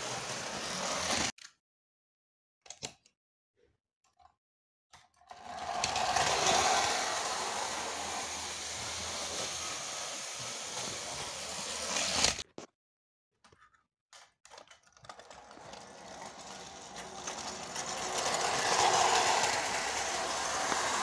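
Hornby O gauge tinplate model trains running on tinplate track: a steady mechanical whirring with rattling of wheels on the rails. The sound cuts out abruptly twice for a few seconds, and swells near the end.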